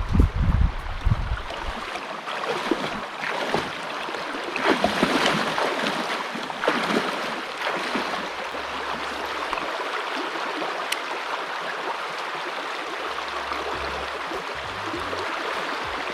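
Shallow river current running over rocks, a steady rushing hiss. Low rumbling in the first two seconds and a few brief knocks a few seconds in.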